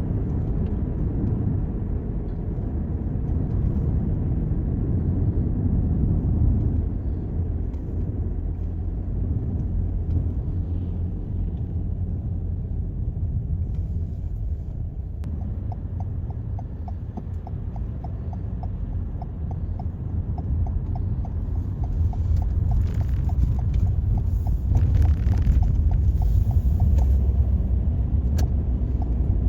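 Steady low road and engine rumble heard inside a moving Toyota Corolla's cabin. About halfway through, the turn-signal indicator starts ticking evenly, about two ticks a second, and a brief rush of passing traffic is heard near the end.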